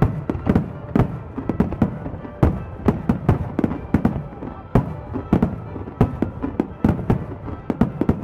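Aerial firework shells bursting in a rapid finale barrage: booms two or three a second, overlapping, each followed by a rumbling echo.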